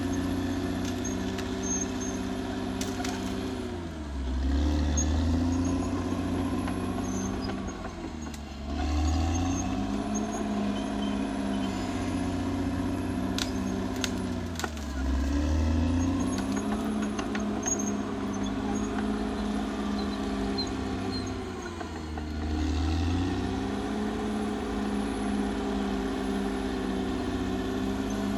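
Caterpillar D6R XL bulldozer's diesel engine running steadily, its pitch dropping four times with a surge of low rumble as it takes load, then picking back up. A few sharp knocks come through along the way.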